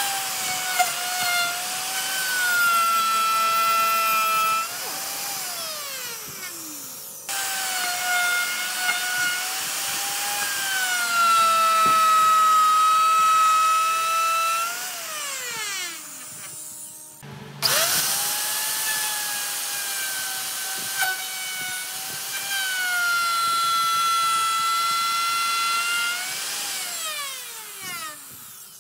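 Electric plunge router running with a high whine while routing a slot in a wooden board, its pitch sagging as the bit takes load. The motor is shut off and winds down with a falling whine three times, starting up again abruptly after the first two.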